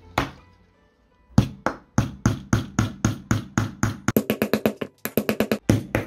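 Background music made of sharp drum-like hits: a steady beat of about three strikes a second, breaking into quick rolls near the end.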